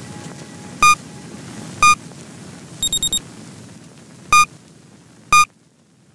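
Electronic interval-timer beeps over faint background music. Two single beeps a second apart count down the end of the interval, a quick run of four higher beeps about three seconds in marks the switch, and two more single beeps a second apart count in the next exercise. The music fades out near the end.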